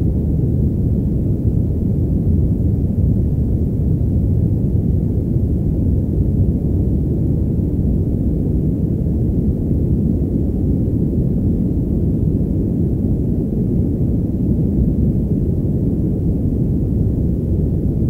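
Padded white noise: a steady, slightly muffled rush of noise with the hiss of its top end cut away, leaving a deep, even rumble that does not change.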